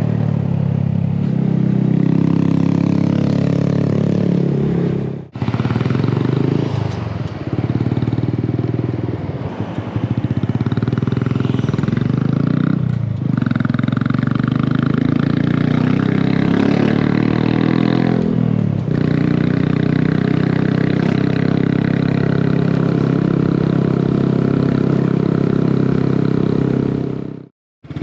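Honda Grom's single-cylinder four-stroke engine pulling uphill under load through aftermarket slip-on mufflers. For the first five seconds it runs through a polygonal muffler with a fairly crisp, off-road-bike-like bark. After a brief break it runs through a conventional cylindrical muffler with a strong low-mid tone, dipping briefly a few times along the way.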